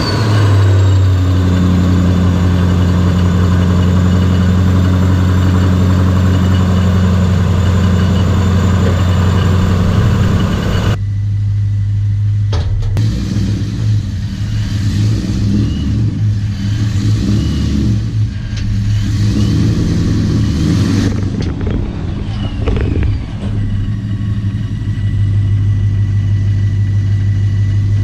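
Supercharged 392 Hemi V8 of a Dodge Challenger SRT8 running just after a start, with a steady, loud idle. About eleven seconds in the sound changes abruptly to an engine note that rises and falls, with faint rising whines, as under light driving.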